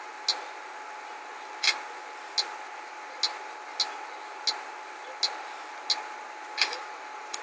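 Passcode being keyed in on the Nabi tablet's touchscreen keyboard: about ten short clicks at uneven intervals, one per keypress, over a steady hiss.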